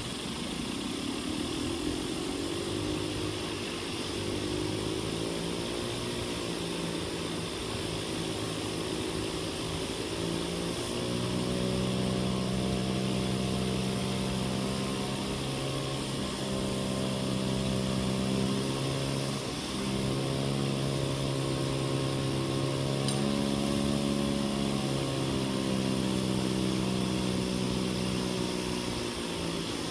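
Hand-crank siren wailing, its pitch climbing over the first few seconds and then wavering up and down as it is cranked, dipping once midway and falling near the end. A blower runs steadily underneath, forcing air into the siren to make it louder.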